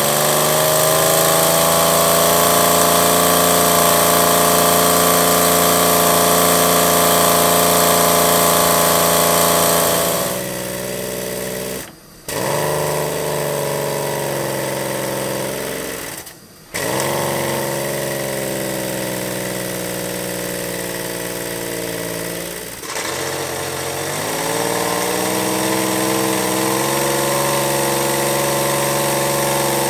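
Miniature brass three-cylinder steam engine running fast with a steady mechanical whirr. It speeds up with a rising pitch at the start, breaks off abruptly twice in the middle, and near the end picks up speed again and holds steady while driving a small generator.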